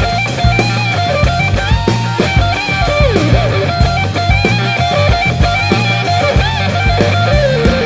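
Background rock music: electric guitar melody over bass and a drum kit with a steady beat.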